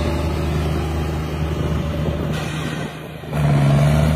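John Deere tractor's diesel engine running hard under load as it drives across loose sand, a steady low drone. It dips briefly, then comes in louder near the end.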